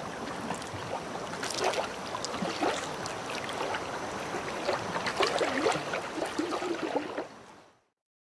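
Water lapping and splashing with small gurgles, as on a lake, fading out about seven and a half seconds in.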